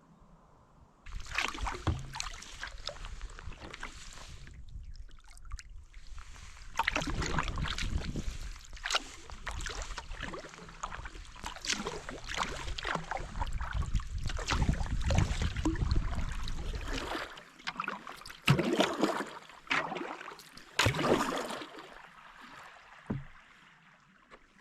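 Kayak paddle strokes: blades dipping and splashing in the water with drips, in a steady run with a brief lull about five seconds in, then single spaced strokes near the end.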